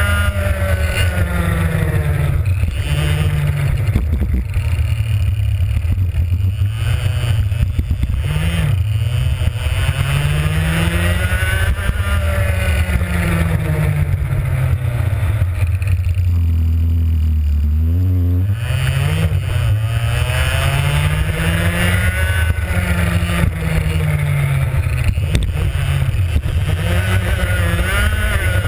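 Two-stroke racing kart engine heard onboard, revving up along the straights and dropping in pitch as it slows for corners, over and over. About sixteen seconds in it holds low revs for a couple of seconds before climbing again.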